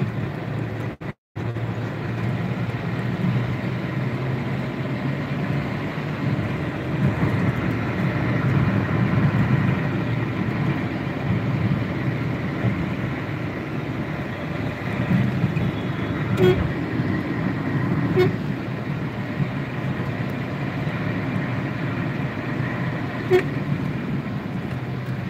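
Traffic heard from inside a moving car: a steady rumble of engine and road noise, with a few short horn toots from surrounding vehicles in the second half.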